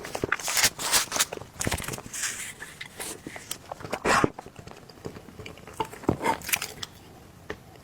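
Close-up eating sounds of soft cake being chewed: irregular wet clicks and mouth smacks, busiest in the first half and sparser toward the end.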